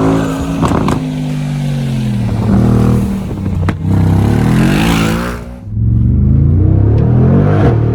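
GAD Motors-tuned Mercedes-AMG G63's twin-turbo V8 running under load and revving, its pitch falling and rising through the revs, with a few sharp cracks along the way.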